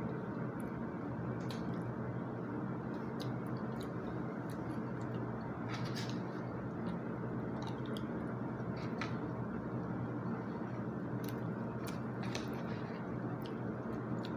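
A person eating: chewing, with scattered short clicks of a plastic spoon and fork against a plastic meal tray, over a steady background hiss.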